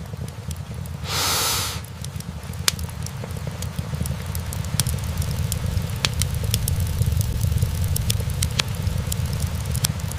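Wood fire burning in a fireplace: a steady low rumble with sharp crackles and pops from the logs, scattered throughout. A short, loud hiss lasting under a second comes about a second in.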